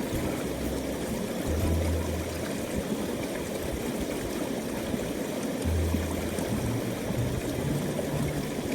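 Mountain stream water rushing and burbling steadily over rocks, with two brief low rumbles partway through.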